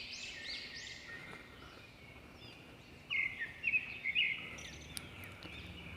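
Small birds chirping in the background: quick short chirps, strongest in a burst about three to four and a half seconds in.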